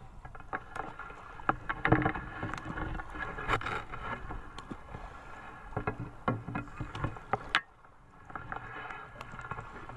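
Water sloshing and splashing, with irregular knocks and clicks. The sound drops out briefly about three-quarters of the way through.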